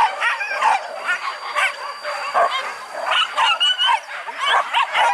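Several hunting dogs yelping and barking at once, their high, wavering calls overlapping.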